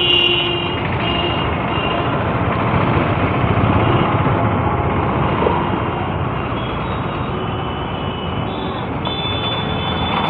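Busy street traffic of motorcycles, auto-rickshaws and e-rickshaws running past as a steady din, with short high tones from horns or beepers at the start and again near the end.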